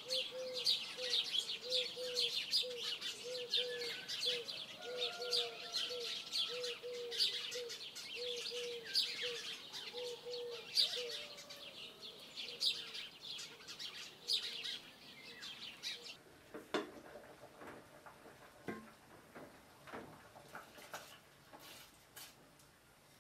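Outdoor birds chirping and twittering densely, with a low note repeated two or three times a second beneath them for the first ten seconds or so. About two-thirds of the way through the birdsong stops, leaving only a few scattered light knocks and clicks.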